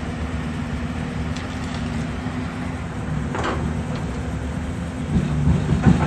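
Excavator's diesel engine running steadily, with a few loud metal clanks and knocks near the end.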